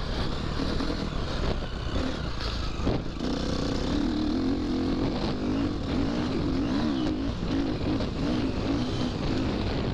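Motocross bike engine running under way, its revs rising and falling repeatedly as the throttle is worked.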